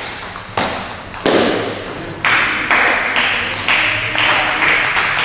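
Table tennis ball clicking off bats and table in quick succession, about two sharp hits a second, each ringing on briefly in the hall.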